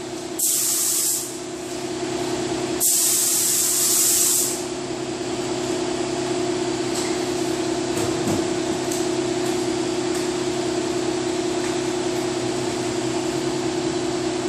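Gravity-feed automotive paint spray gun spraying clear coat in two hissing passes, a short one and then a longer one ending about four and a half seconds in. Under and after it, a steady hum of shop ventilation fans.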